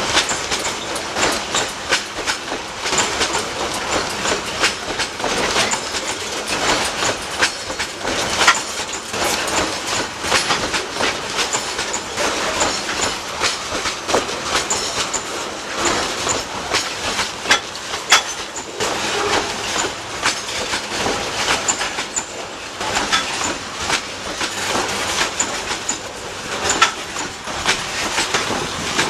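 Railway cars rolling past on the track, with a continuous run of wheel clicks and knocks over the rail joints.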